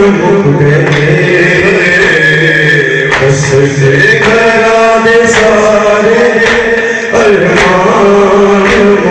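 Men chanting a noha, an Urdu mourning lament, in long held, wavering notes. From about three seconds in, sharp hand-on-chest strikes of matam land about once a second.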